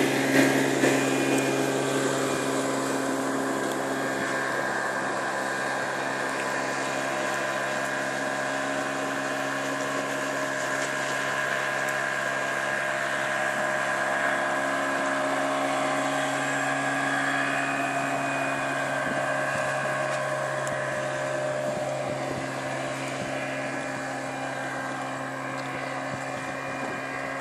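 Motorboat engine running at a steady drone, with wind and water noise, easing off slightly near the end.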